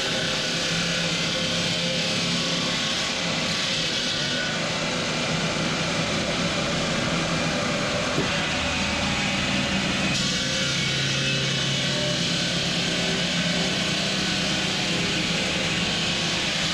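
Steady machinery noise: a constant low hum under a broad hiss, shifting slightly in tone about ten seconds in.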